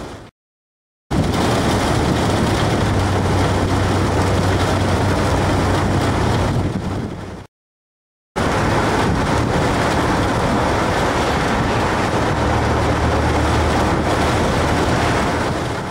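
Strong wind rushing over the microphone, with a steady low hum underneath, while a fan-bladed pinwheel spins in a 30 to 40 mph wind. The sound cuts out completely for under a second just after the start and again about halfway through.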